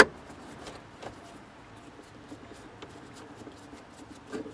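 Screwdriver with a Torx bit backing a screw out of plastic center-console trim: a sharp click at the start, then faint scratchy clicks and rubbing as the screw turns.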